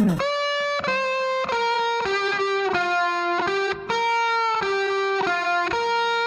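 Background music: a melody of held electric guitar notes, one at a time, changing pitch about every half second.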